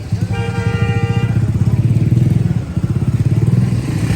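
A small engine running steadily close by, with a rapid low pulsing. A horn-like tone sounds for about a second near the start.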